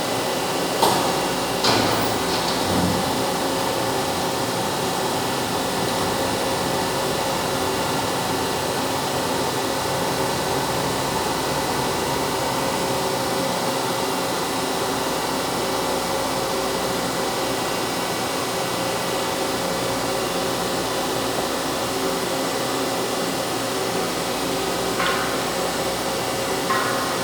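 CNC machine running with a steady mechanical whir carrying several constant tones. There are a few sharp knocks in the first few seconds and two more near the end.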